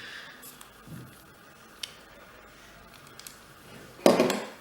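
Handling noises from unboxing: a few light clicks and taps, then a loud rustling scrape near the end.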